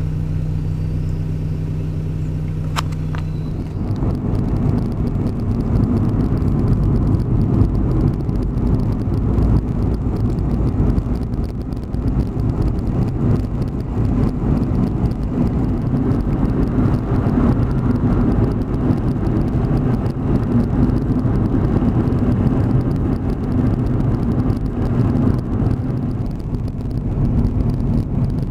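Motorhome engine running with a steady low hum, heard from inside. There is a sharp click about three seconds in, and soon after the hum gives way to the louder, rougher engine and road noise of the vehicle on the move.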